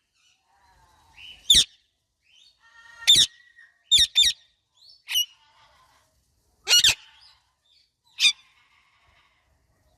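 Indian ringneck and Alexandrine parakeets chirping: about eight short, sharp, high-pitched calls with quiet gaps between them, some coming in quick pairs.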